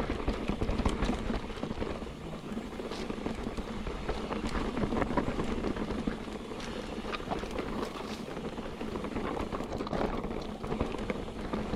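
Mountain bike rolling down a dirt trail: steady tyre noise over dirt and debris, with a stream of small clicks and rattles.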